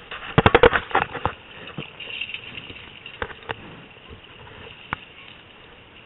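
Water splashing as an Atlantic salmon thrashes in a landing net at the surface: a quick burst of splashes about half a second in, then a few scattered single splashes and knocks.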